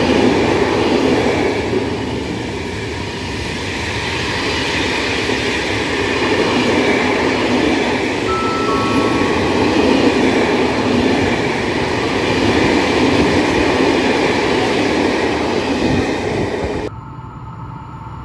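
Freight train of flat stake wagons rolling past at speed, a loud steady rumble of steel wheels on the rails. It cuts off abruptly near the end, leaving a much quieter background.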